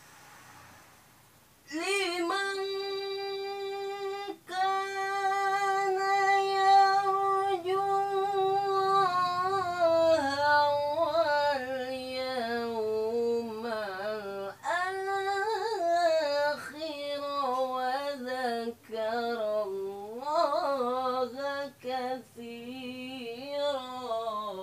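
A solo unaccompanied voice chanting in maqam rast in the style of Quranic recitation: a long held high note, then ornamented melismatic phrases that waver and step down in pitch, broken by short pauses for breath.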